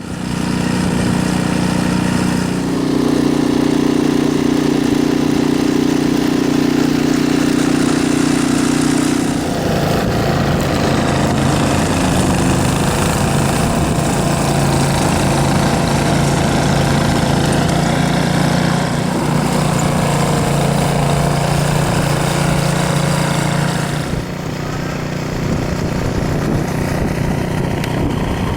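A small engine running steadily, its pitch stepping to a new level a few times.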